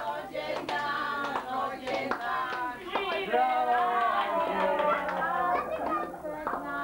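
Children and adults singing a birthday song together, with hand claps.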